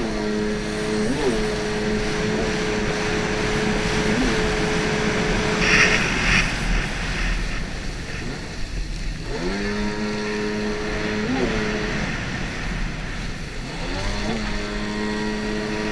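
Stand-up racing jet ski's engine running at a steady high note under the hiss of water spray. About six seconds in, the throttle comes off and the engine note drops away for a few seconds. It then climbs back in with a rising note, eases again, and rises once more near the end.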